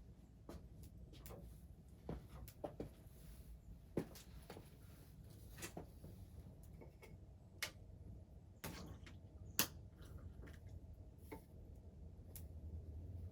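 Wood fire crackling faintly: irregular sharp pops, one or two a second, the loudest about four seconds in and near the end, over a steady low rumble.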